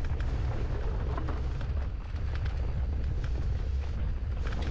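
Mountain bike riding downhill with wind rumbling on the microphone, the tyres running over the trail, and frequent sharp knocks and rattles from the bike.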